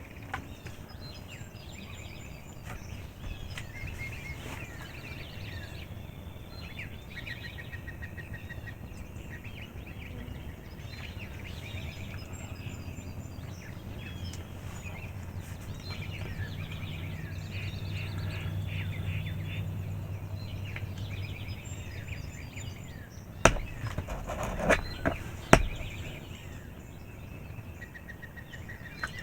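Wild songbirds chirping and singing over a low outdoor background hum, with three sharp knocks a few seconds before the end.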